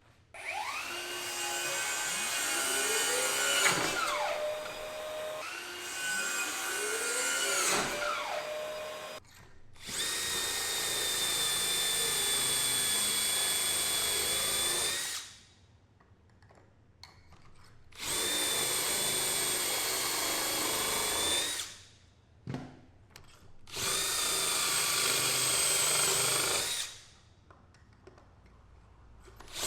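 A handheld electric power tool's motor running in about five bursts of a few seconds each, with short pauses between them. In the first two bursts the pitch rises as the motor spins up.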